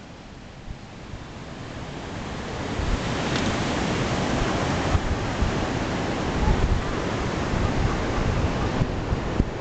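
Ocean surf breaking and washing in, a steady rushing noise, with wind buffeting the microphone. The rush swells over the first few seconds and then holds steady.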